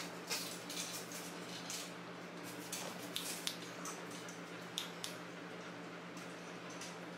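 German Shepherd puppy's mouth chewing and licking: irregular small clicks and wet smacks, a few every second, over a steady low hum.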